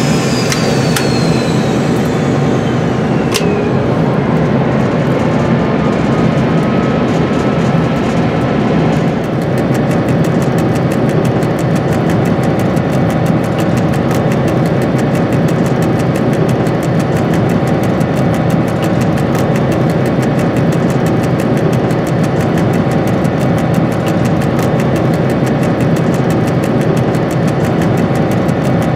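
Diesel engine of a Dr12 locomotive running steadily, heard inside the cab as the train rolls along. In the first few seconds a high whine falls steadily in pitch, with a single sharp click about three seconds in.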